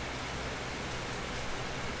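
Steady rain falling, an even hiss without distinct drops standing out.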